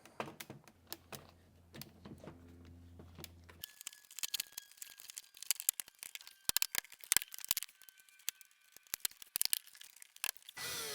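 Irregular light clicks, taps and rattles of plastic door trim and a wiring connector being handled and pressed into place, over a low steady hum that stops a few seconds in. Right at the end a louder steady whir starts.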